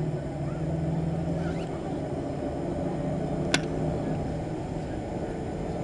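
Boeing 737-800 cabin noise while taxiing: a steady rumble of engines and air system, with a low hum that eases off about two and a half seconds in. A single sharp click comes about three and a half seconds in.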